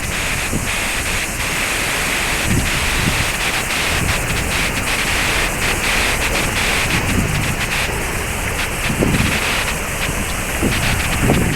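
Waterfall rushing in a steady, loud roar of falling water, with wind buffeting the microphone in low gusts now and then.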